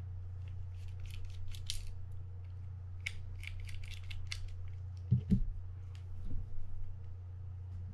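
A small screwdriver clicking and scraping against the screws on the internal plate of a Mitchell 300 spinning reel, in two short runs of quick ticks. About five seconds in come a few dull thumps, louder than the clicks, over a steady low hum.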